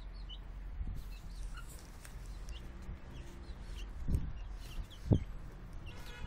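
Young Plymouth Rock and Campine chickens cheeping with many short, high notes at intervals. There are two brief low thumps, a little after four seconds and at about five seconds.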